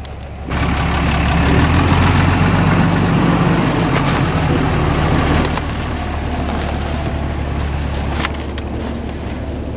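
Dodge Ram 2500 pickup's engine running as the truck pulls away towing a trailer; the engine sound swells about half a second in and eases off somewhat in the second half as it moves away.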